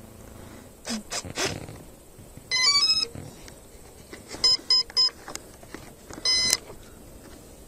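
Electric speed controller of a radio-controlled foam model plane beeping through its motor as the flight battery is connected: a short rising run of notes, then three short beeps and one longer beep, the usual start-up, cell-count and armed signals. Knocks and rustles from the battery being handled come about a second in.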